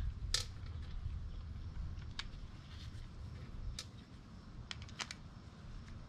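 Scattered light clicks and taps of a plastic Briggs & Stratton carburetor's parts being handled as its float bowl is fitted back on, a few at a time with the sharpest near the start, over a low steady rumble.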